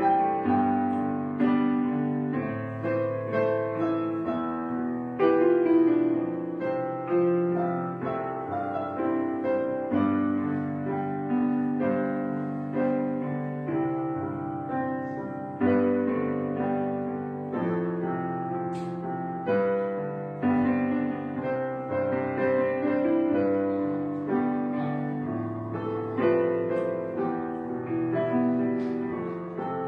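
Background piano music: notes and chords struck one after another, each left to ring and fade.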